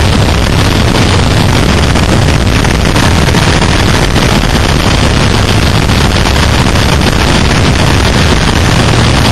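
Onboard sound of a Suzuki SV650 ridden hard on track: wind rush and the V-twin engine's noise blended into a steady, very loud roar that overloads the microphone.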